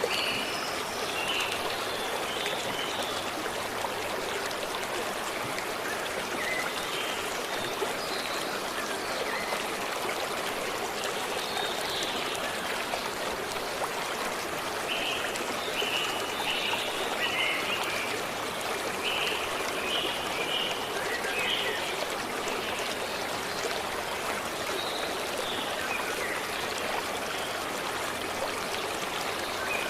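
A forest stream running steadily with a continuous rushing trickle. Birds call over it in short bursts of quick, high notes: near the start, and again in two clusters around the middle.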